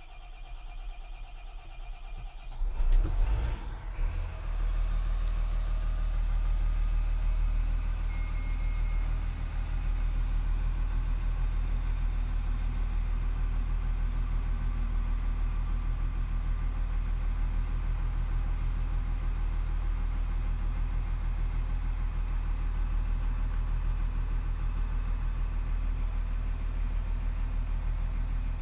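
Volvo L120F wheel loader's freshly overhauled D7E six-cylinder diesel starting, heard from inside the cab: it catches with a brief surge about three seconds in, then settles into a steady idle. A short beep sounds about eight seconds in.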